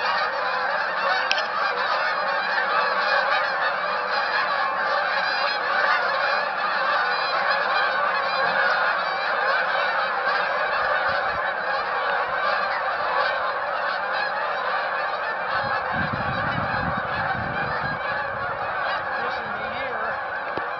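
A huge flock of waterfowl calling as it flies overhead, thousands of birds merging into a dense, unbroken chorus that eases slightly toward the end.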